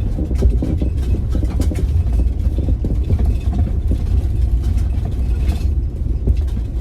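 Iveco Daily van on the move: a steady low engine rumble with road noise.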